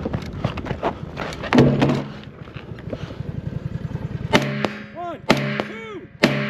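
Three rifle shots about a second apart near the end, preceded by rapid footsteps and gear rattle as the shooter moves through the course of fire. Between the shots a pitched, wavering background sound swoops up and down over a low hum.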